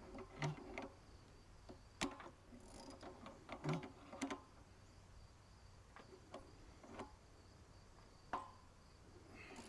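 Scattered light clicks and knocks of metal tools and parts being handled, under a faint steady chirping of crickets.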